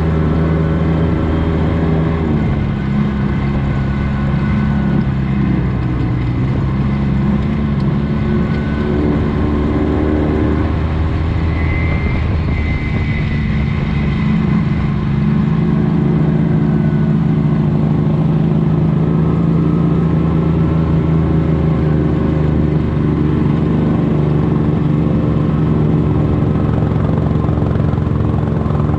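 Off-road side-by-side's engine running while riding, its pitch dropping with the throttle about two seconds in and shifting again around ten seconds, then holding steady.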